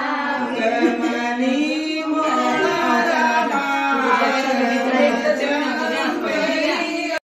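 Women singing a slow song together with long held notes; the singing cuts off suddenly near the end.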